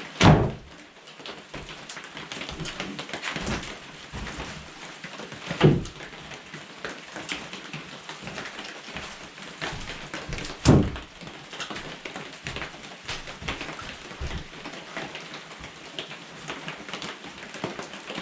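Heavy rain falling steadily, with three loud thumps about five seconds apart.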